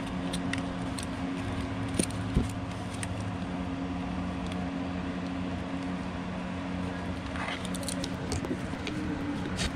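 Small metal clicks and clinks of locking pliers working a hose clamp onto a fuel line, with two sharp clicks about two seconds in, over a steady low hum.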